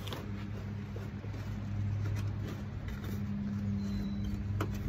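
A steady low hum runs throughout, under the handling noises of a stiff rubber floor mat being pushed into place in a pickup's cab. There is a sharp click at the start and another near the end.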